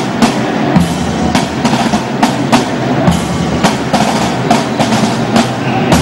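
Drum band of snare drums and a bass drum playing a marching beat, with sharp accented strikes roughly twice a second over a continuous snare rattle.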